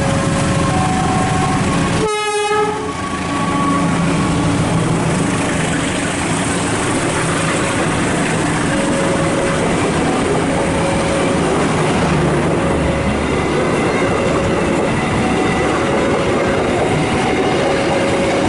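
A train passing close by, its wheels and running gear making a loud, steady rumble with clickety-clack. Under it a two-note alarm keeps repeating, one short tone after another.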